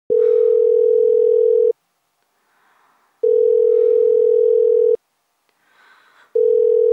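Telephone ringback tone heard down the line by the caller: a steady single tone about 1.7 s long, repeating three times with gaps of about a second and a half, while the call rings waiting to be answered. Faint sounds come in the gaps between rings.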